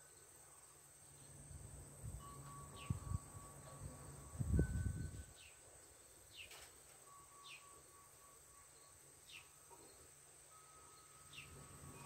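Porch wind chimes ringing softly over a steady high insect drone, with short falling bird chirps every second or two. A low rumble about four and a half seconds in is the loudest sound.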